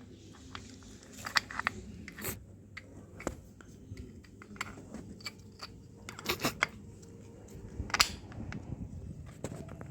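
Irregular sharp metallic clicks and clinks of hand tools and drum-brake parts being handled and fitted, a few louder knocks among them, the loudest about six and a half and eight seconds in.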